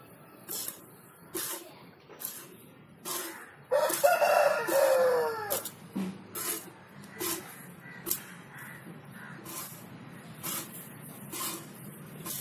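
A rooster crows once, about four seconds in, a call of about two seconds that falls in pitch at the end. Around it, the short hissing squirts of a cow being milked by hand repeat a little faster than once a second.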